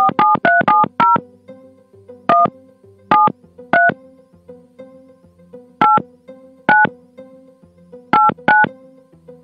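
Telephone keypad tones (DTMF) as a phone number is dialled: a fast run of about seven beeps in the first second, then single beeps every second or so, the last two close together. A quiet music bed runs underneath.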